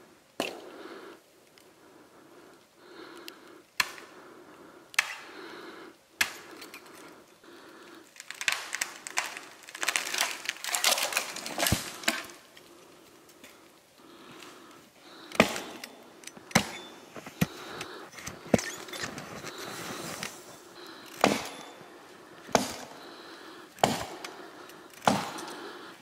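Axe chopping into a fallen log: single sharp chops, a second or so apart, with a few seconds of rustling and crunching in the middle.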